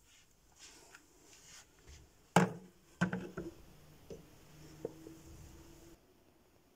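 Objects being handled on a hard surface: light rustling, then one sharp knock about two and a half seconds in, followed by a few smaller knocks.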